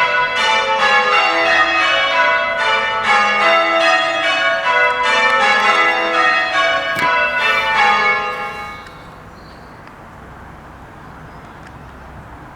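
The front six bells of an eight-bell church tower rung in change ringing, a rapid even sequence of strikes. About eight seconds in the ringing stops and the last notes die away, leaving only faint outdoor background.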